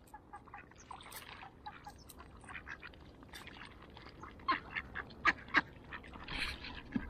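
Mallard ducks quacking on the water: scattered short quacks, with a few louder ones a little past the middle.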